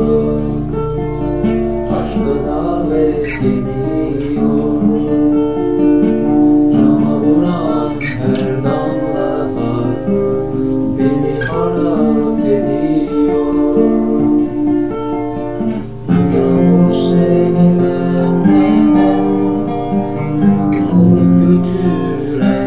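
Acoustic guitar being played, with notes and chords changing every second or so.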